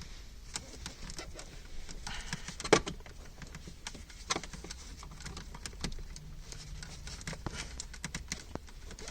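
Plastic centre-console trim being pried off with a flat screwdriver and trim tool: scattered small clicks, taps and scrapes of tools on plastic. The sharpest clicks come a few seconds in and again about four seconds in.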